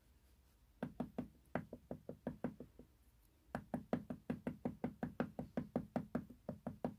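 A wooden-mounted rubber stamp tapped over and over on an ink pad, about five quick taps a second, in two runs with a short pause about three seconds in. The new stamp is being worked into the StazOn ink pad so that its rubber takes ink.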